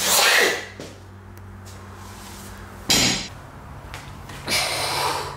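A loaded barbell with bumper plates comes down on the plywood lifting platform with a sharp clank about three seconds in. Around it are loud, breathy bursts of noise from the deadlift, over a steady low hum.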